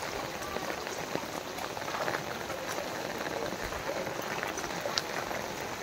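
Rain falling on a flooded street: a steady hiss of drops pattering on standing floodwater, with many small scattered ticks.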